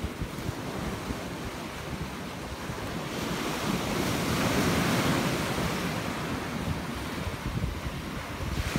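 Ocean surf breaking and washing over rocks on the shore, swelling louder about halfway through as a wave surges in. Wind buffets the microphone underneath.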